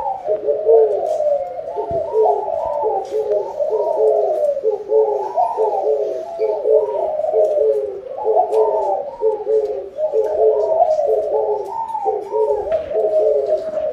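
Spotted doves cooing continuously, their phrases overlapping one another without a break.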